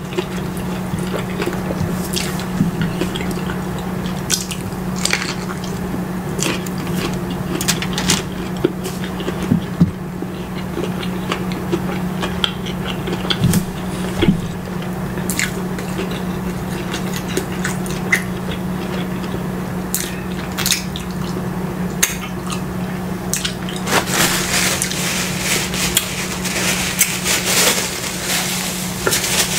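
Close-up chewing and wet mouth sounds from eating a cheeseburger, with many small clicks and smacks, over a steady low hum. Near the end comes a rustling stretch as a paper wrapper is handled.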